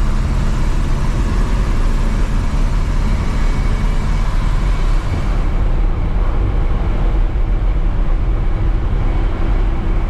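1952 Chevrolet one-ton truck with a carbureted 350 V8, under way: steady engine and road noise heard from inside the cab.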